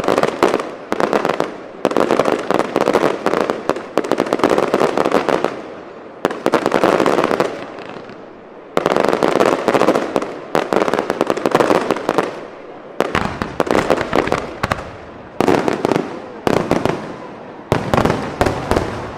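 Aerial fireworks bursting into crackling stars: a dense, rapid crackle comes in repeated waves, each starting suddenly and fading away over a second or two.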